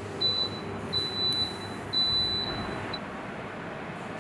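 An electric air cooler fan running with a steady rush of air, while its electronic control panel gives four high beeps: a short one, two longer ones about a second apart, and a brief one near the end.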